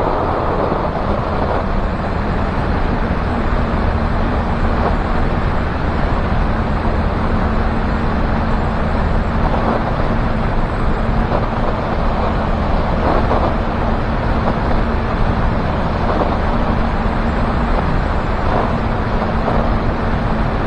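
Light aircraft's propeller engine running steadily in cruise flight, a constant hum mixed with wind rushing over a camera microphone mounted outside the aircraft.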